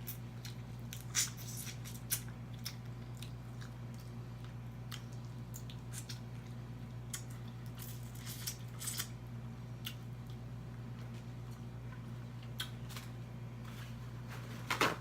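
Person eating crab legs close to the microphone: wet chewing and mouth smacks with scattered sharp clicks, a louder burst near the end, over a steady low hum.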